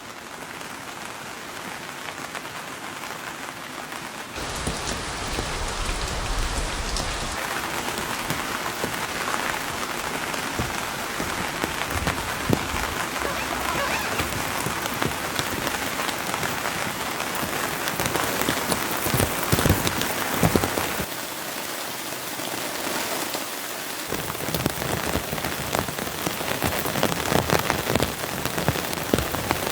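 Rain falling steadily, a dense hiss of many drops with sharper individual drop ticks, louder from about four seconds in.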